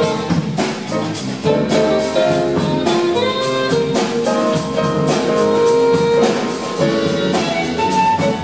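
Jazz-funk ensemble playing live: a saxophone and brass horn section over drum kit, electric guitar and grand piano, with a steady beat. The horns hold a long note through the middle.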